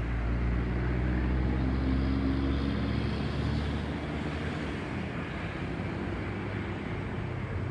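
Boeing 737-700 Business Jet's CFM56-7B turbofans rumbling overhead with a low hum, loudest about two seconds in, then slowly fading as the jet moves away.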